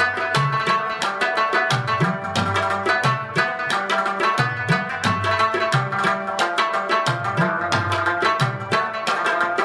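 Background music: an Afghan rubab instrumental with tabla, quick plucked string notes over a steady drum rhythm whose deep strokes bend up in pitch.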